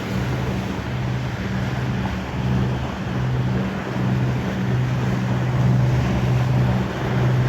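Boat engine running with a low, steady drone as the vessel motors past, over wind and water noise.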